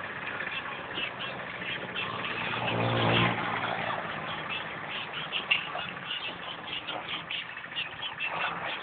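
A motor vehicle passing on the street: a steady engine hum swells to its loudest about three seconds in and then fades, over faint high chirping in the background.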